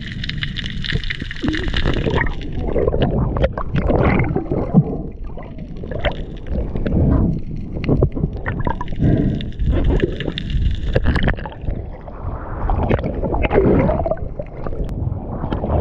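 Muffled underwater gurgling and sloshing of water over a camera held by a swimming diver, coming in irregular surges.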